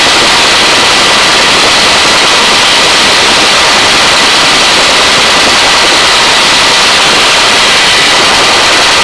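Helicopter hovering under a hoist load: a steady, loud rushing of turbine, rotor and rotor wash at the open cabin door, with a faint high whine running through it.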